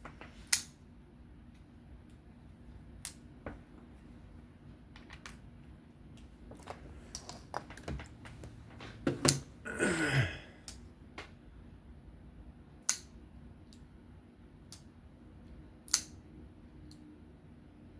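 Scattered sharp clicks and taps from a small Torx driver and folding-knife parts being handled and screwed together, with a brief louder rasp about ten seconds in.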